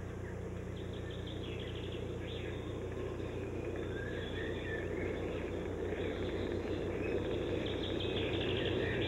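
Field ambience with small birds chirping and twittering throughout, over a steady low hum and hiss.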